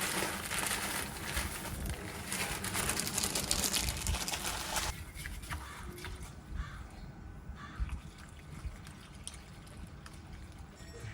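Water running steadily, most likely from a tap, for about five seconds and then shut off, followed by a few light clicks and knocks.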